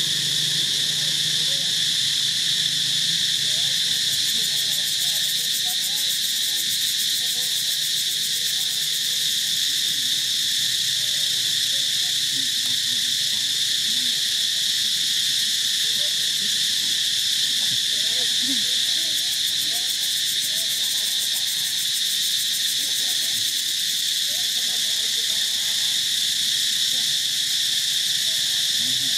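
Steady outdoor insect chorus: a continuous high-pitched drone that does not change in level.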